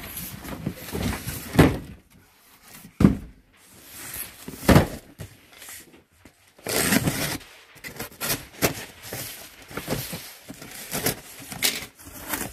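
A cardboard carton being handled and opened: a few dull thumps as the box is shifted and set down, then a box cutter slicing through the packing tape, with cardboard scraping and crackling as the flaps are pulled open.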